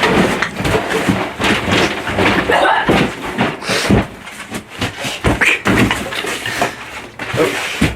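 Household things rattling, clattering and thudding as they are shaken and knocked about in a staged earthquake, with a run of sharp knocks and bangs.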